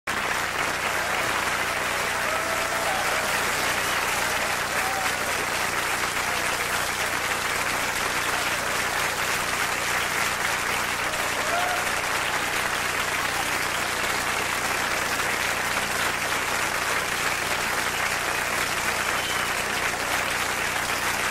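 Audience applauding steadily, with a few faint short cries over the clapping and a steady low hum underneath.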